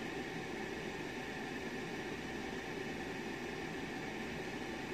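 Steady, even background hiss and hum with no distinct events.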